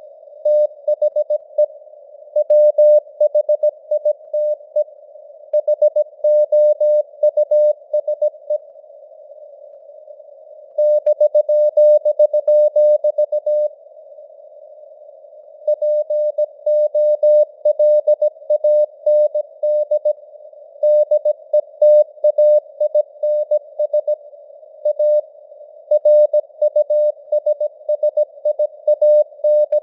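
Morse code sent at 17 words per minute: a single steady tone keyed on and off in dots and dashes, over a hiss of simulated radio noise, with the signal rising and fading in strength. The keying stops twice for about two seconds, leaving only the hiss.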